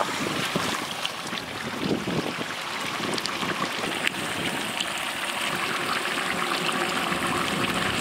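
Green coriander, mint and chilli masala bubbling in a large cooking pot: a steady hiss with faint small pops.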